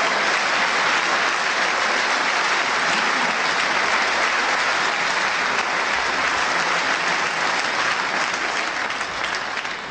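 Audience applauding steadily, thinning a little near the end.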